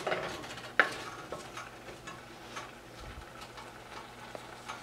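Wooden spatula stirring a moist coconut and mango mixture in a saucepan: faint scraping and light ticks against the pan, with one sharper knock a little under a second in.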